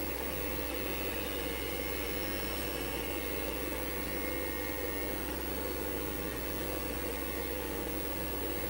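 Vintage IBM PC and expansion unit running with the cover off: power-supply fans and spinning hard drives make a steady whirring hum.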